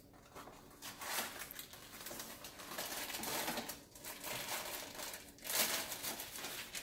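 Cake-mix box being opened and its plastic inner bag crinkling and tearing as it is pulled open; about five and a half seconds in, a louder rush as the dry mix pours into a metal mixing bowl.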